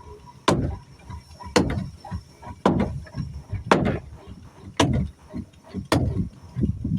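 Hand tool striking wood in a steady rhythm, about one blow a second, as in wooden boat building work.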